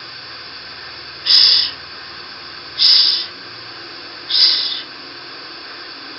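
A voice pronouncing the English consonant /ʃ/ ('sh') on its own, three times: three short hisses about a second and a half apart.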